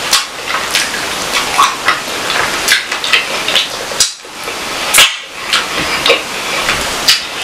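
Close-miked eating: chewing with wet mouth clicks and smacks, in a quick irregular patter.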